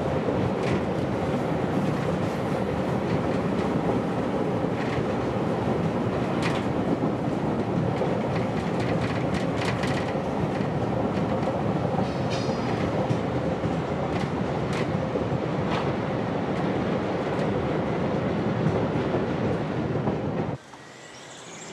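Steady running noise of a moving passenger train heard from inside the carriage, with scattered clicks of the wheels over the rails. It drops away suddenly near the end.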